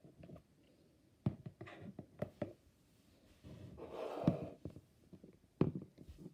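Plastic action figures being handled, with several sharp clicks and knocks, and a breathy hiss lasting about a second in the middle.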